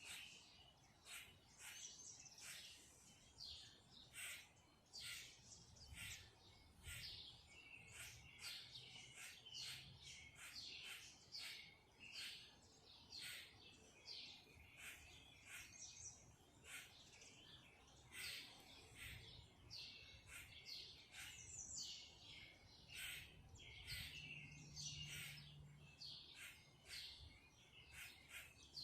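Birds chirping: a busy run of short, quick chirps, several a second, going on without a break.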